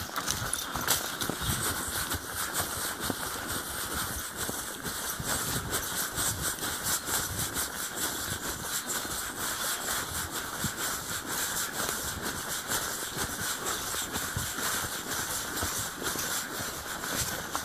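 Horse moving at speed through woodland, heard from the saddle: rapid hoofbeats on the soft forest floor under a constant noisy rush.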